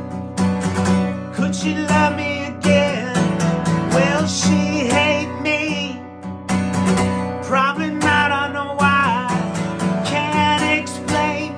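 Acoustic guitar strummed continuously, with a man singing long, wavering notes over it.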